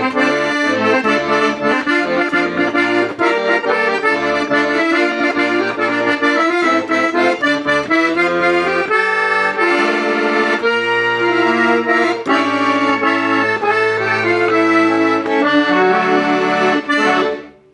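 Hohner Organola accordion being played: a melody over bass and chord accompaniment, which stops just before the end.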